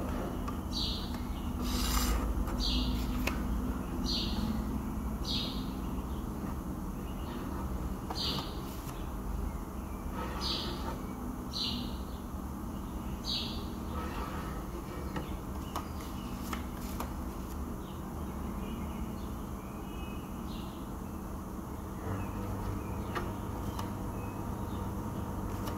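Plastic spreader drawing body filler (bog) across a bus side-panel skirt: a run of short squeaky scrapes, about one a second for the first dozen seconds, then fewer, over a steady low hum.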